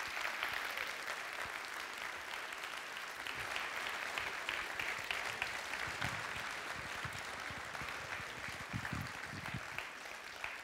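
Audience applauding steadily after a talk, easing off slightly near the end.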